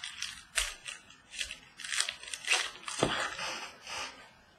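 Crinkling and tearing of foil trading-card pack wrappers as packs are opened and handled, heard as a string of short, sharp rustles.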